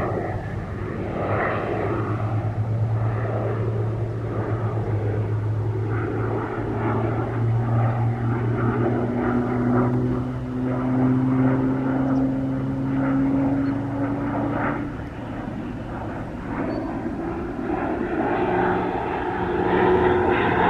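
PZL-130 Orlik propeller trainers flying by, a steady engine and propeller drone whose pitch slowly shifts as the aircraft move. It eases off about three-quarters of the way through and grows louder again near the end.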